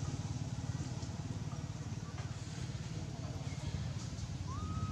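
A small engine idling, a steady low throb of fast, even pulses. Near the end a short high squeak rises briefly.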